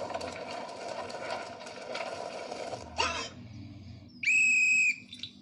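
Cartoon sound effects: a noisy background with faint clicks, a sudden sharp sound about three seconds in, then a single steady, high whistle blast lasting under a second near the end.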